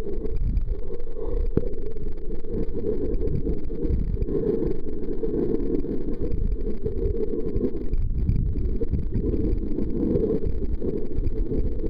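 Muffled, steady underwater rumble picked up through a sealed camera housing, with nothing above a low, dull range and no distinct events.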